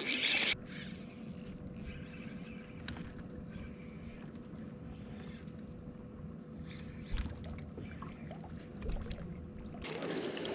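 Quiet sound on a fishing boat on calm water: a low steady hiss with a faint steady hum and a few faint clicks, after a brief loud rustle at the start.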